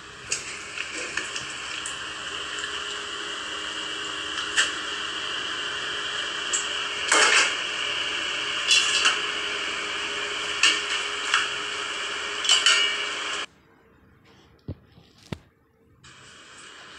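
A metal ladle clinking and scraping against a metal cooking pot, with a dozen or so sharp clinks over a steady hiss from the stove. The hiss cuts off suddenly near the end, and a couple of clicks follow before it comes back.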